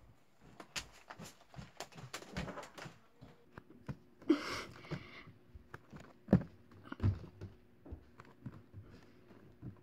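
Scattered knocks, thumps and rustling of a person moving about on a wooden floor close to the phone, with a longer rustle about halfway through and a few heavier thumps just after.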